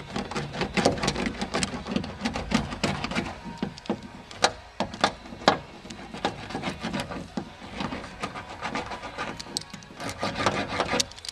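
Hands rubbing and pressing a sheet of sound-deadening material into a car door's inner metal panel, with an irregular run of crackles, clicks and taps as it is worked into the contours and the air bubbles are pushed out.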